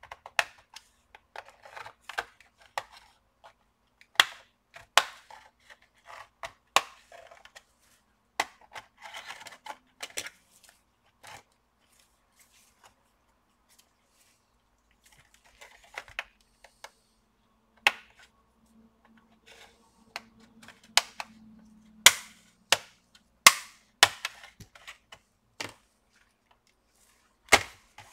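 Plastic clips of a laptop's keyboard deck clicking and snapping loose as a sharp tool pries the top case along its edge: a long irregular run of sharp snaps, with several louder ones in the last third.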